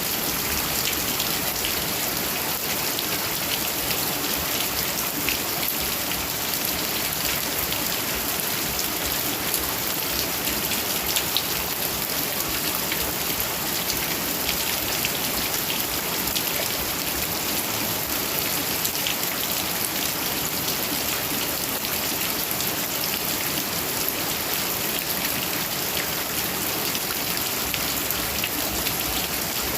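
Heavy rain falling steadily: a dense, even hiss flecked with countless small drop impacts.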